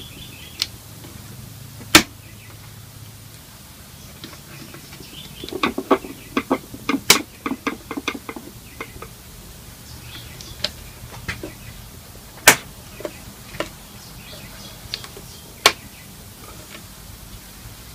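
Handling noise from reassembling a valve radio's cabinet: scattered sharp clicks and knocks, with a quick run of taps and rattles about six seconds in.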